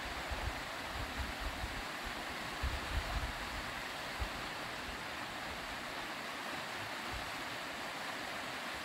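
Rushing water of a shallow, rocky river rapid, a steady hiss, with a few low thumps in the first few seconds.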